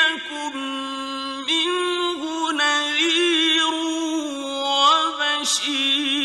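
A single voice chanting religious recitation in long held notes, each ornamented with wavering, sliding turns of pitch, with a few short breaks for breath.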